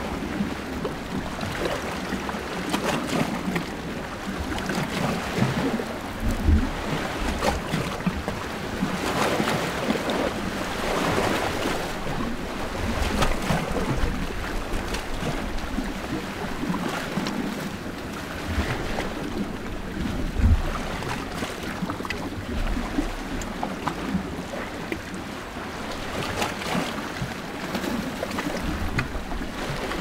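Small Mediterranean sea waves washing against the shore, recorded just above the water: a steady wash of surf that swells and ebbs every few seconds, with scattered small knocks and splashes.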